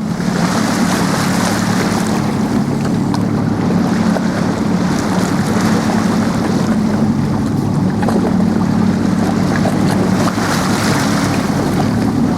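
A boat's motor running steadily, with rushing water and wind buffeting the microphone.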